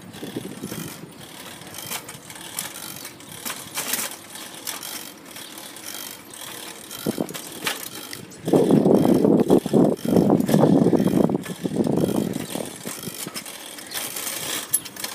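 Bicycle being ridden on pavement, its chain and gears giving off irregular clicks and rattles; a louder rush of noise comes in for about four seconds past the middle.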